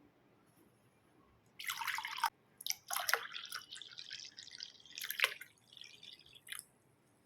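Liquid, most likely buttermilk, splashing and dripping in several irregular bursts that start about one and a half seconds in and die away near the end.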